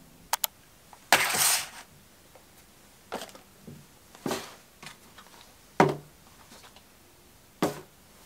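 Handling noises on a countertop: a brief rustle about a second in, then several soft thuds a second or two apart as paper cartons of fresh cream are set down one by one.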